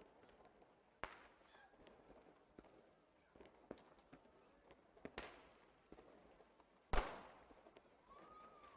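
Fireworks going off: a few sharp bangs, each trailing off, at about one, five and seven seconds in, the last the loudest, with smaller cracks in between.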